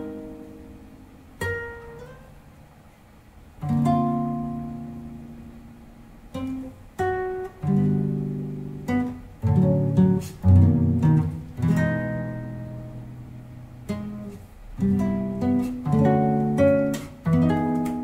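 Solo plucked string instrument playing an unaccompanied instrumental passage: picked single notes and strummed chords, each ringing out and dying away, with the playing growing denser about halfway through.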